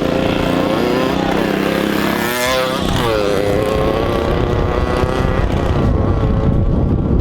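Two small off-road bike engines racing at full throttle, an 80cc two-stroke Yamaha MX80 and a Predator 212 mini bike with a torque converter. The pitch climbs, then drops sharply about two and a half seconds in as they pass by, and settles lower.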